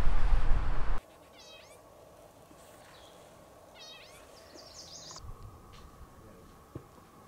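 Wind rumbling loudly on the microphone for about the first second, then a sudden cut to a quiet forest where songbirds sing: two short, quick song phrases and a higher chattering call near the middle.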